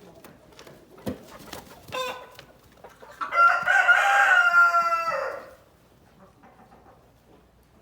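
A rooster crowing once, a loud call of about two seconds that drops in pitch at the end. It comes after a short cluck and a knock.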